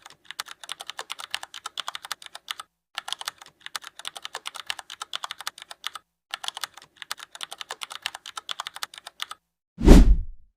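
Typing on a computer keyboard: quick runs of keystroke clicks with two brief pauses, then one loud, deep thump near the end.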